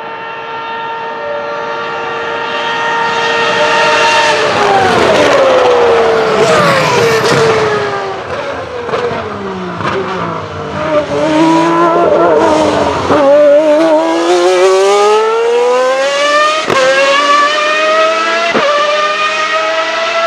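1995 Ferrari 412 T2 Formula 1 car's 3.0-litre V12 at high revs: a steady high-pitched scream growing louder as it approaches, then dropping sharply in pitch as it brakes and downshifts past. After that it climbs steadily in pitch as it accelerates away, cut briefly twice by upshifts, with a second F1 car's engine mixed in.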